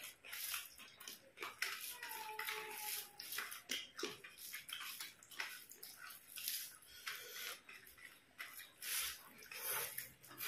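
Wet eating sounds of people eating rice and curry by hand: irregular chewing, lip smacks and the squelch of rice being mixed and squeezed in the fingers.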